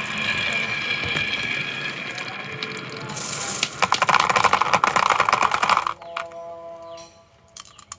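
Marbles rolling and clattering down a wooden marble-run track, with a dense rattle of rapid clicks in the middle as many marbles pour through together. A few ringing tones sound near the end.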